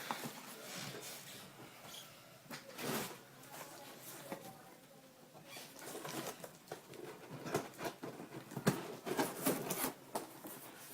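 Cardboard packaging being worked open by hand: irregular rustling and scraping, with scattered sharp clicks.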